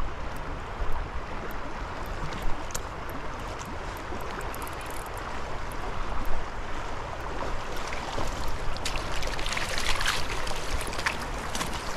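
Creek water running over riffles, with a flurry of small splashes and ticks about nine to eleven seconds in.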